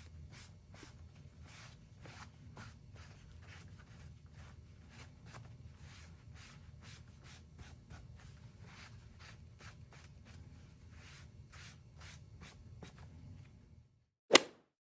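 Top coat sealer being rubbed onto leather with an applicator, a run of short irregular scratchy strokes over a low steady hum. The rubbing stops near the end, followed by a single sharp knock.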